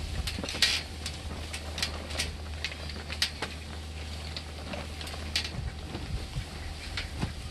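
Irregular small metallic clicks and taps as an L-shaped hex key is turned in a screw on a chainsaw's housing, over a steady low rumble.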